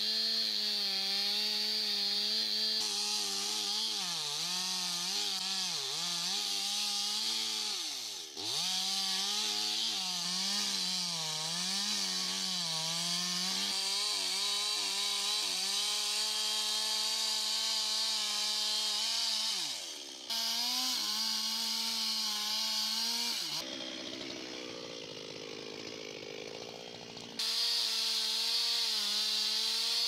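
Large Stihl two-stroke chainsaw running at high revs while cutting into a very thick tree trunk. The engine note sags and recovers over and over as the chain bites into the wood. It drops away briefly about 8 s and 20 s in, and runs quieter and lower for a few seconds near the end before coming back up to full speed.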